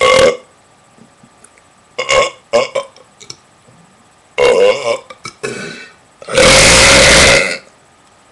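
A series of deliberate burps: short ones at the start, around two seconds in and around five seconds in. Then comes one long burp of over a second near the end, the loudest of them.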